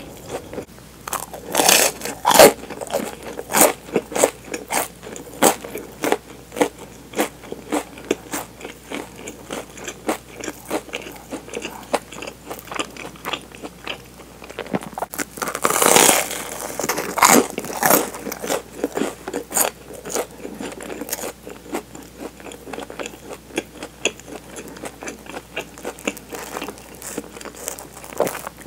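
Close-miked eating of toasted sandwich bread: crisp bites and crunchy chewing through the toasted crust, with many small crackles. The loudest crunching bites come about two seconds in and again around sixteen seconds.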